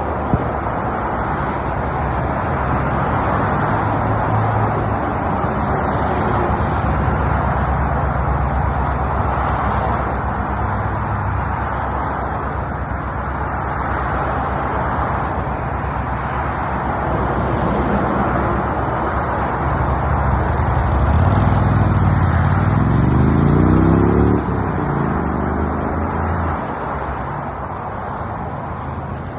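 Steady highway traffic noise, mostly the rush of tyres on the road with a low rumble. About three-quarters of the way through, one vehicle's engine rises in pitch as it accelerates, the loudest moment, then drops off suddenly.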